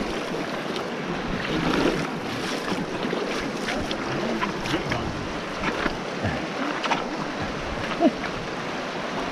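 Shallow river rushing over rocks: a steady rushing noise, with a few small clicks and knocks.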